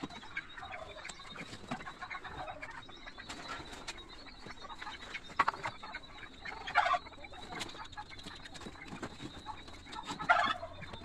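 Golden pheasants calling in short, harsh squawks, with two louder calls about seven and ten seconds in, over scattered clicks and rattles from the birds being handled in the wire aviary.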